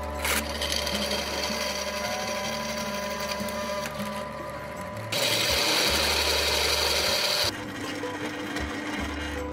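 Drill press running as a twist drill bores through steel angle iron, a steady motor hum under the cutting. A louder stretch of cutting noise lasts about two and a half seconds, starting about five seconds in.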